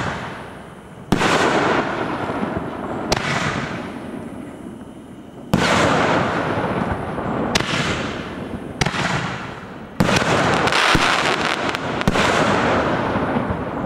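Aerial fireworks bursting overhead: a string of about seven sharp booms a second or two apart. Each boom trails off into a fading crackle and hiss of burning stars, and the crackle is densest about ten seconds in.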